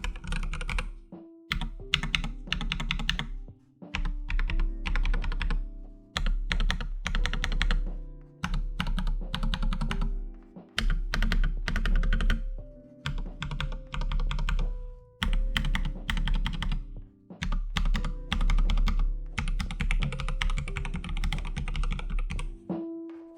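Akko 3108 RF mechanical keyboard's stabilized keys being pressed repeatedly in quick bursts of clacks, with short pauses between bursts, over background music.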